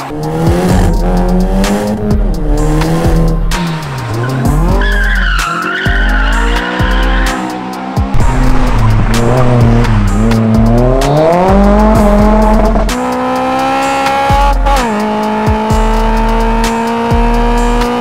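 Car engine revving up and down with tyres squealing as a car drifts, mixed with music that has a pulsing bass beat. In the last few seconds the engine holds a steadier note, dropping once in pitch.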